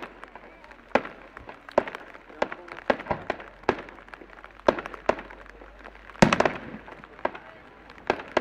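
Fireworks going off: an irregular series of sharp bangs from bursting shells, roughly one or two a second, the loudest about six seconds in with a brief rumble after it.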